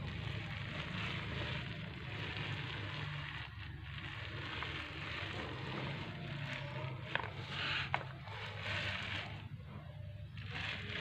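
Sponge texture roller rolling over a wet cement-and-waterproofing coat on a speaker box: a sticky crackling hiss that swells and fades with the strokes, over a steady low hum. Two sharp clicks come about seven and eight seconds in.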